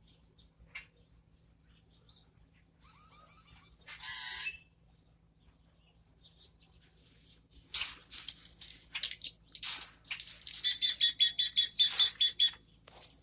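Pet parrot calling: a few faint chirps, then a short call about four seconds in. From about eight seconds come loud, harsh squawks, with a fast run of repeated screeches near the end.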